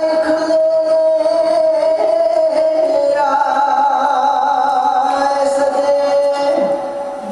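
Dhadi jatha singing live: male voices holding a long, drawn-out melodic line on sustained notes, moving to a new pitch about three seconds in and again near five seconds.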